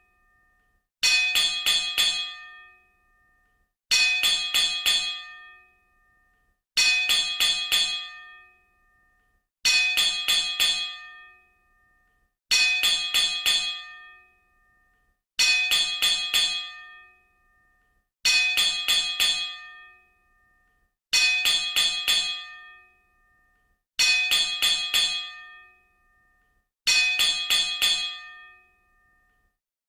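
A metal bell rung in quick clusters of about four strikes, each cluster ringing out and fading, repeated about every three seconds, ten times over.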